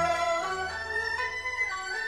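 Instrumental background music: a melody of held, gliding notes over sustained low notes.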